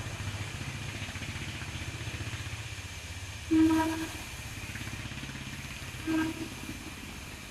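A motor running steadily with a fast low throb, and two short horn toots about three and a half and six seconds in, the first one longer and louder.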